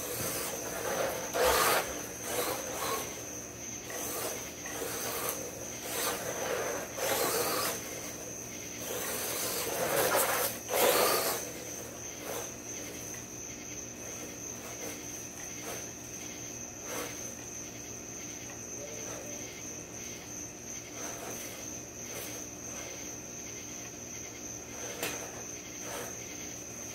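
Crickets chirp in a steady high trill throughout. A WLtoys 124019 RC car's electric motor and tyres on dirt swell up and fade several times as it passes close in the first twelve seconds or so, loudest at about a second and a half in and again around ten to eleven seconds in.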